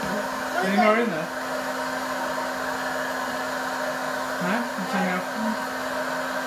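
Electric hot-air popcorn popper running: its fan and heater blowing with a steady whoosh and an even hum.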